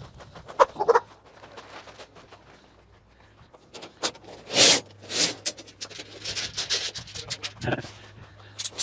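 Scraping and rustling noises, with a couple of louder bursts about halfway through followed by a run of quicker scratchy sounds.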